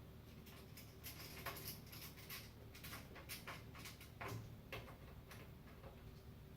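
Light, irregular clicks and taps of small hardware being handled while a case fan is screwed into a PC case, over a faint steady low hum.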